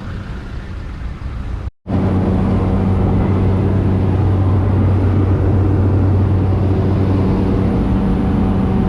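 Steady vehicle engine drone heard from inside the vehicle. A cut about two seconds in, after which a louder, even drone with a deep steady hum.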